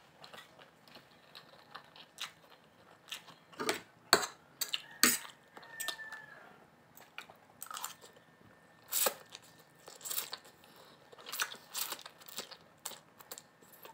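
Close-up eating sounds of pancit canton instant noodles: wet chewing, lip smacks and slurps at irregular intervals, the loudest about four, five and nine seconds in.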